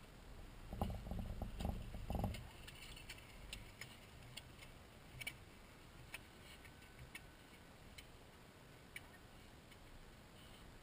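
Faint outdoor background: a few low rumbles in the first two seconds, then scattered faint clicks and ticks.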